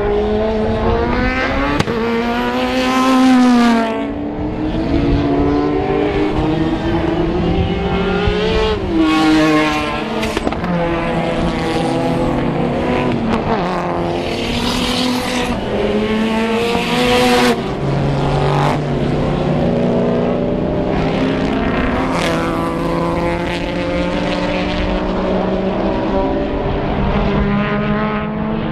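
Several racing cars' engines running hard on a circuit, their notes climbing and dropping again and again through gear changes and braking. The sound swells loudest as cars pass close, about three, nine, fifteen and twenty-two seconds in.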